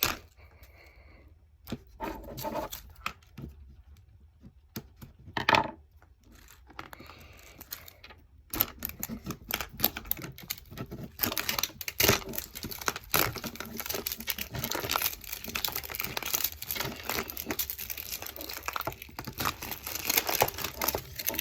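Thin clear plastic wrapping being torn and crinkled as it is peeled off a toy capsule ball. A few scattered rustles and taps at first, then continuous crinkling from about eight seconds in.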